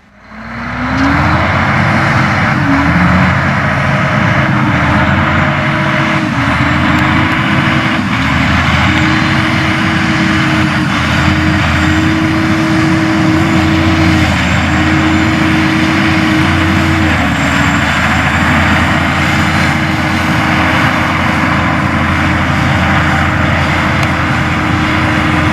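Heavy diesel farm machinery running steadily under working load, a deep engine drone with a wavering whine over it and a dense mechanical rush.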